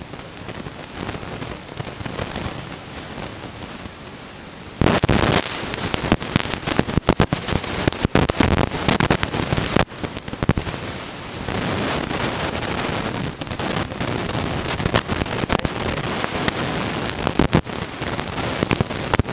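Loud, dense crackling hiss full of sharp pops, starting suddenly about five seconds in and going on without a break.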